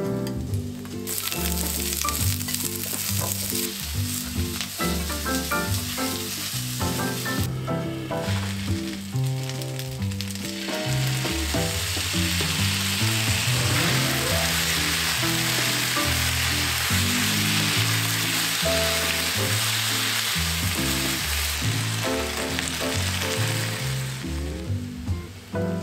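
Cabbage and udon noodles sizzling in a hot oiled frying pan as they are stir-fried. The sizzle drops off for a few seconds about a third of the way in, then comes back stronger and steady, over background music.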